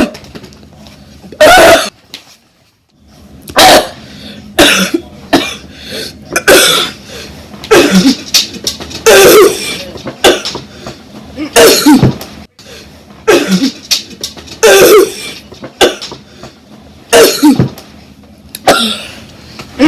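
A person coughing over and over in a long fit: loud, harsh coughs about every second or so, with a short pause near the start.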